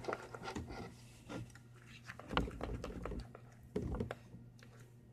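A utensil stirring a thick glue slime mixture in a bowl: quick clicks and scrapes against the bowl with wet squelching, and a couple of heavier knocks about two and a half and four seconds in.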